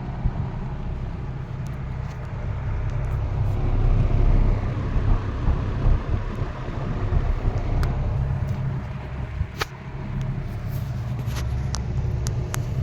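Late-1960s Eskimo 20-inch two-speed box fan running on low speed: a steady motor hum under the rush of air from the blades, with a few sharp clicks in the second half. The fan runs smoothly, its bearings oiled and without play.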